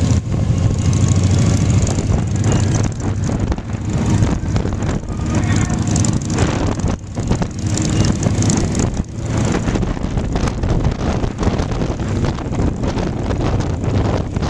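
Motorcycle running at road speed, heard from the pillion seat, with wind rushing over the microphone and other motorcycles riding close by.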